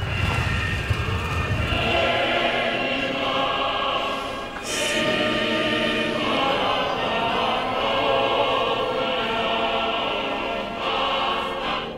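A choir singing in long held chords. A low car-engine rumble fades out under it in the first two seconds.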